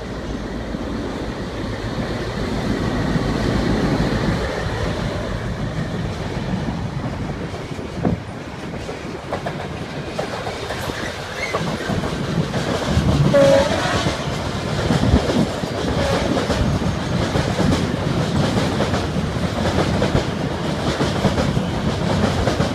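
Two diesel freight trains passing on a rail bridge: a Class 60 locomotive with empty oil tank wagons and a Class 66 with loaded tanks going the other way, their diesel engines running under wheels clattering over the rail joints. A short high-pitched tone sounds about halfway through, the loudest point, as the Class 66 passes close by.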